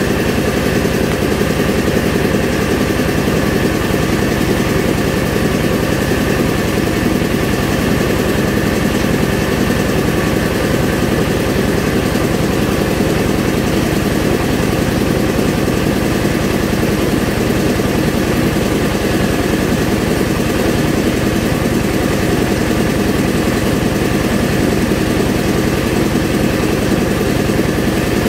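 Engine-driven rice milling machine running steadily while milling paddy, at an even, unchanging pace.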